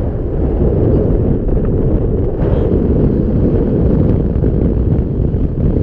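Wind buffeting the microphone on open water: a loud, steady, low rumble.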